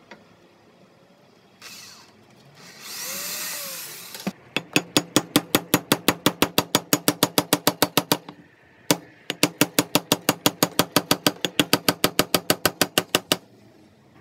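Ryobi power drill running briefly, its pitch rising and falling as it bores a pilot hole through pallet wood. Then a hammer drives a nail into the wood in two long runs of quick, even blows, about eight a second, with a single blow between them.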